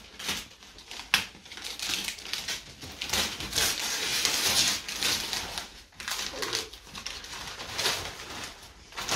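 Gift wrapping paper crinkling and tearing as a present is unwrapped by hand, in irregular rustles with a few sharp crackles, loudest in the middle.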